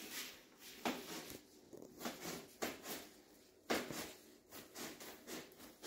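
Rustling and crinkling of a large sheet of foil-faced insulation as it is lifted and bent, with a few sharper crackles.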